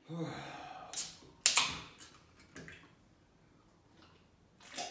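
A man drinking from a beverage can: a few short gulps and slurps, the loudest about a second and a half in.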